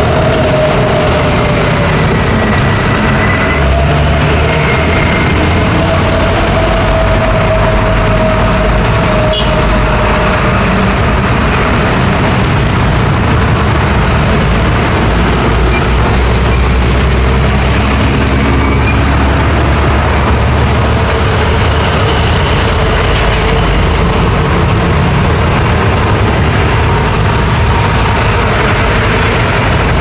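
Loud, steady heavy road traffic: diesel trucks, including dump trucks and a cement mixer, and motorcycles passing close by, their engines making a continuous rumble.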